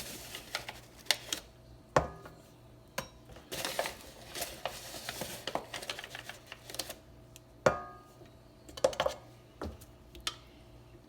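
Flour being scooped and poured into a stand mixer's bowl, with a soft rustling hiss of flour and sharp knocks and clicks of a measuring cup against the bowl and container.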